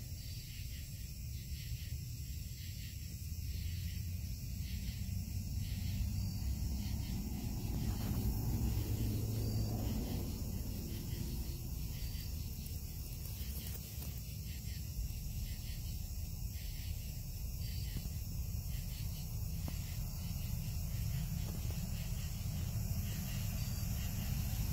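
Crickets or other night insects chirping in a steady, regular rhythm with high steady trills, over a low steady rumble.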